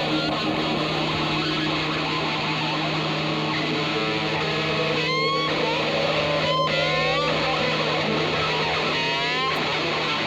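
Soundtrack music led by electric guitar over a steady held low note, with a few short upward-sliding notes about halfway through and again near the end.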